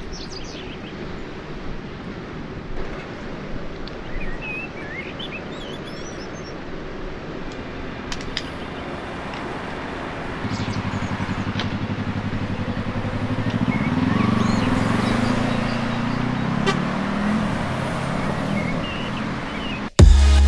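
Yamaha YZF-R3's parallel-twin engine through an Arrow slip-on exhaust. After about ten seconds of steady background hiss, the engine note comes in about halfway, rises in pitch as the bike accelerates, then holds steady. Loud music cuts in abruptly at the very end.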